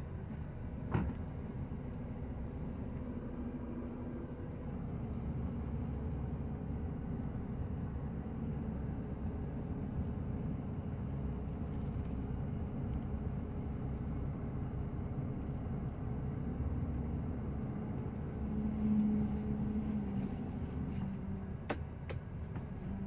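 Scania XT 560 Super's 13-litre six-cylinder diesel running low and steady while the truck is manoeuvred slowly at walking pace, heard from inside the cab. A click about a second in, and the hum briefly louder near the end.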